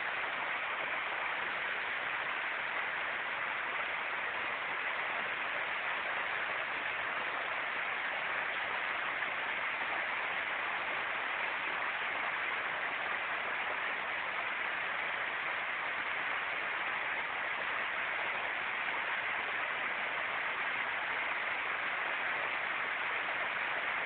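Muddy storm runoff gushing over a low wall and churning below it: a steady rushing of water.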